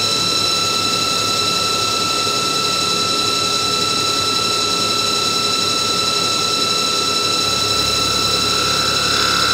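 Anatol TP 32 CNC lathe running steadily: an even machine noise with several constant whining tones. A low hum joins about seven and a half seconds in.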